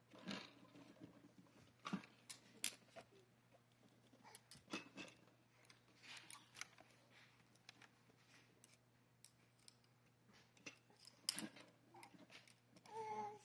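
Scattered light clicks and clinks of small metal hand tools being handled: screwdrivers and a pair of pliers knocked together and worked open and shut, with a sharper knock now and then.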